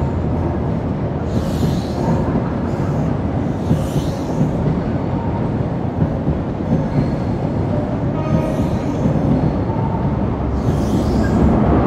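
A High Speed Train's Mk3 coaches rolling slowly past on the rails, a steady low rumble with short hissing bursts every few seconds. The diesel engine of the trailing Class 43 power car gets louder near the end as it approaches.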